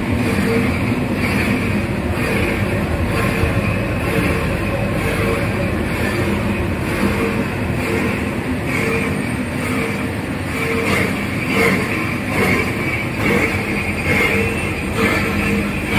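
BS-D75 car wire granulator running as it grinds scrap cable, its crusher and vibrating copper–plastic separator table making a loud, steady machine noise with a hum that pulses regularly.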